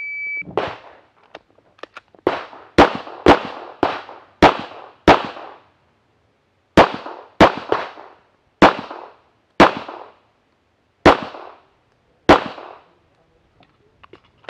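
Shot timer gives one short beep, then a Tanfoglio Limited pistol fires over a dozen shots at a brisk pace, each with a short ringing tail, with a pause of about a second and a half near the middle.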